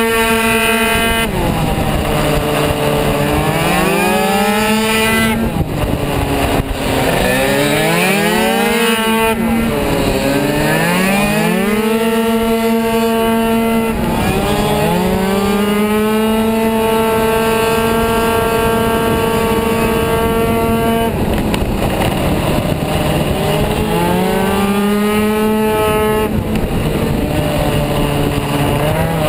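Kymco Super 9 racing scooter's 70 cc two-stroke engine, heard on board, running flat out. It holds a steady high note on the straights; several times the pitch drops as the rider backs off for a corner, then climbs again as it accelerates out.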